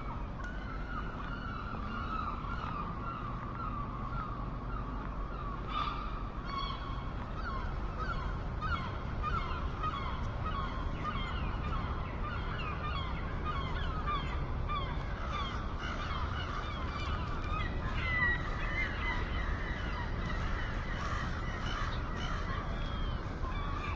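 A flock of seagulls calling, with many short, harsh calls overlapping continuously, over a steady low rumble.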